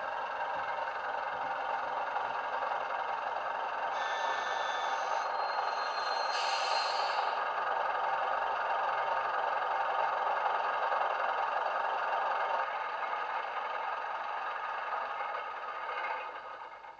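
Bachmann Class 105 diesel multiple unit model's DCC sound (Wheeltappers sound file on a LokSound micro decoder) playing the railcar's diesel engine running as the model drives along, heard through its small onboard speaker. Brief higher sounds come in around four and six seconds in, and the sound fades out at the very end.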